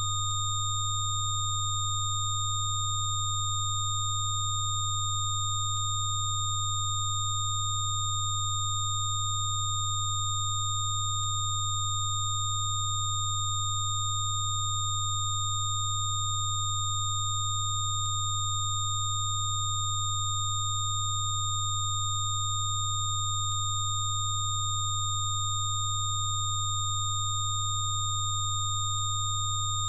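Electronic Rife-frequency sine tones held steady and unchanging: a low hum near 100 Hz sounding together with several thin, high, pure tones.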